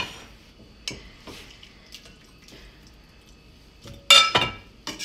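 Kitchenware clinking: a glass bowl and metal pots knocking together, with a knock right at the start, a few light taps, and a louder ringing clink about four seconds in.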